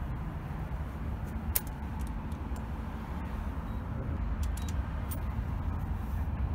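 Wind buffeting the phone's microphone in a low, uneven rumble, with a few faint clicks of buttons pressed on a parking pay machine's keypad.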